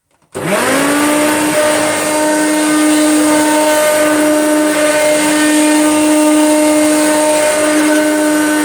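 Hoover Turbomaster vacuum cleaner switched on a moment in, its motor spinning up quickly to a steady whine and running while it is pushed back and forth over the carpet.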